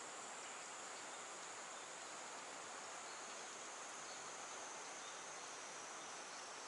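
Insects droning steadily, a continuous high-pitched buzz over a soft, even background hiss.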